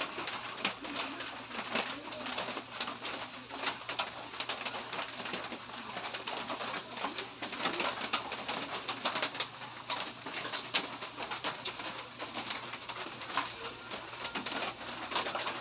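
Close-miked eating sounds: chewing and lip-smacking on a mouthful of pancit canton noodles, a dense run of small wet mouth clicks.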